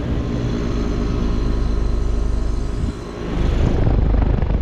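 Outdoor units of two 5-ton residential heat pumps running in heat mode: steady compressor hum under the whir of the condenser fan, with a fast flutter in the level. About three seconds in it dips briefly, then comes back louder with a deeper rumble.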